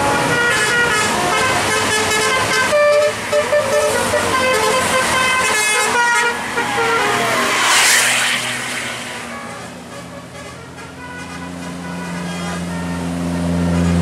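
Tour bus telolet horn, a multi-tone air horn, playing a quick tune of stepping notes. About eight seconds in a loud rushing hiss comes as a bus passes close, and a deep engine hum builds near the end.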